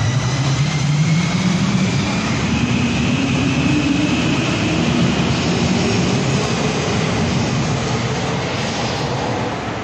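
Helsinki Metro electric train pulling away from the platform, its motor whine rising steadily in pitch as it picks up speed, over a steady rumble of wheels on rail.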